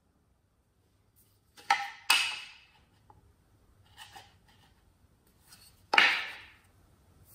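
Painted wooden boards knocking together as they are handled. There are two sharp clacks just before two seconds in, a softer one around four seconds, and the loudest about six seconds in, each dying away quickly.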